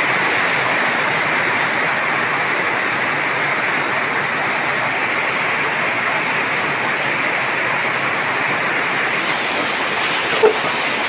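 A steady, even rush of water: rain and running floodwater. There is one brief sharp sound about ten seconds in.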